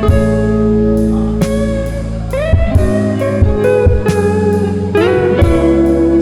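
Background music: a guitar piece with sliding notes over a steady drum beat.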